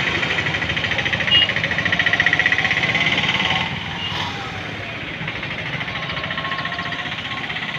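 Diesel generator engine running steadily with a rapid, even pulsing beat. It is louder for the first three and a half seconds, then quieter.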